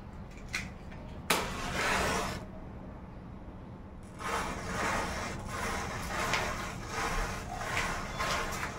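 Matchsticks igniting: a sharp strike about a second in flares into a hiss lasting about a second, then from about four seconds in a continuous fizzing, surging every half second or so as further matchsticks catch.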